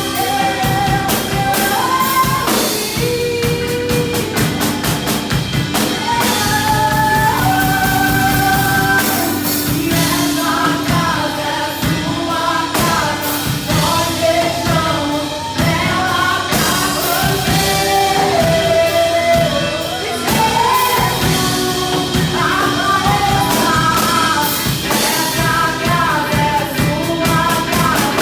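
Church worship band playing a praise song: voices singing a melody over instruments and a steady beat.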